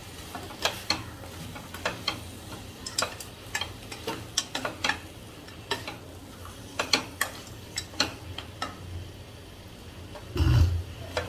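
Chopped small onions frying in oil, stirred with a spoon that knocks and scrapes against the pan in irregular clicks over a faint sizzle. A louder low thump about ten seconds in.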